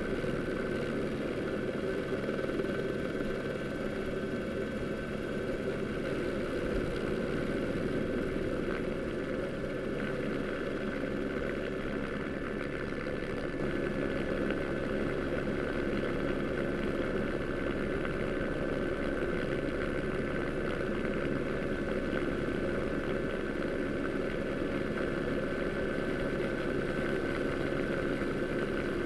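Steady engine drone with a thin, constant high whine above it, unchanging in pitch and level throughout.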